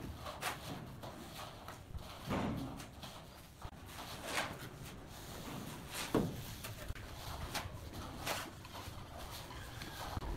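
Steel shovel scraping and scooping through a dry sand-and-cement mortar mix, in irregular strokes every second or two.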